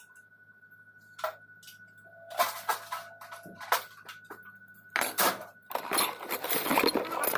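Metal hand tools and engine parts clinking and knocking: a few separate knocks at first, then a dense run of rapid clattering near the end.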